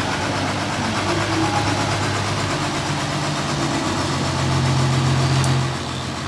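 Diesel engine of a large forklift running as the truck drives and turns. About four seconds in, the engine speeds up and runs louder at a steady higher pitch for about a second and a half, then drops back.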